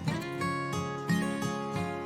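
Background music: a plucked string instrument playing notes one after another over lower notes.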